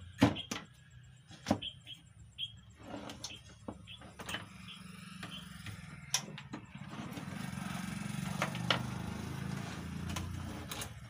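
Sharp clicks and knocks of a CRT TV's circuit board, wires and parts being handled and lifted on a workbench. From about seven seconds in, a steady low rumble rises underneath.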